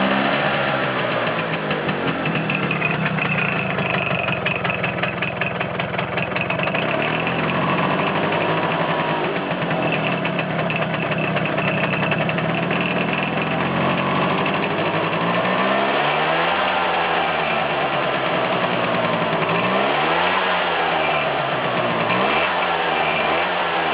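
Vespa T5's 125 cc two-stroke single-cylinder engine idling with the clutch engaged, carrying the extra noise that goes away when the clutch is pulled in. Three short throttle blips in the last third rise and fall in pitch.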